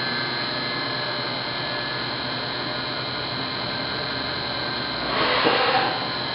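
Fadal VMC4020 vertical machining center powered up, giving a steady hum with a few steady whining tones. About five seconds in, a louder rushing hiss lasts under a second.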